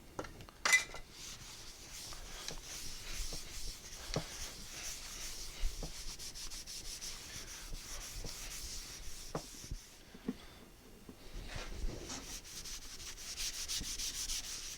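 Beeswax and mineral oil finish being rubbed onto a birch plywood toy garage: a steady rubbing hiss that stops for about a second partway through, with scattered light knocks of the wooden piece and one sharper knock near the start.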